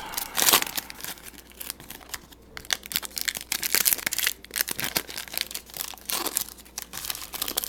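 Crinkling and tearing of a trading-card pack wrapper being opened, with the cards handled and shuffled, in irregular crackles and clicks. The loudest crackle comes about half a second in.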